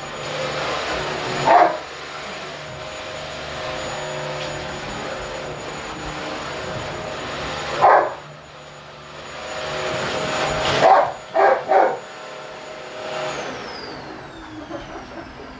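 A dog barks five times: once early, once about halfway, then three barks in quick succession later on. Underneath is the steady hum of a Whirlpool WFO3P33DLXUK dishwasher running its 65 °C main wash.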